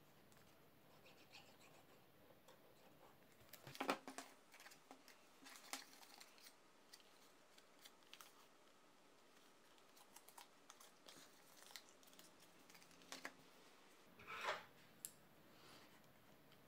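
Mostly near silence, with faint scattered clicks and rustles of a folded card-stock box being handled and pressed together by hand. The most distinct sounds are a cluster of clicks about 4 s in and a short rustle about 14.5 s in.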